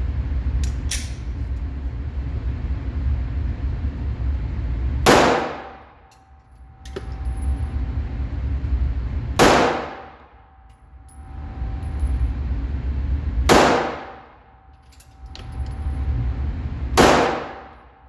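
Glock 48 9mm pistol fired four single shots at an indoor range, slow aimed fire about four seconds apart.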